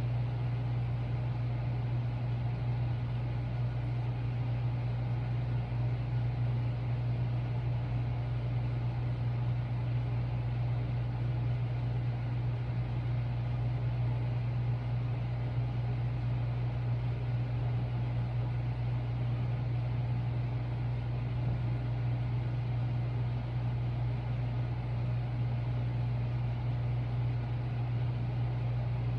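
A steady low hum with a faint hiss over it. The level holds even throughout, with no distinct beats standing out.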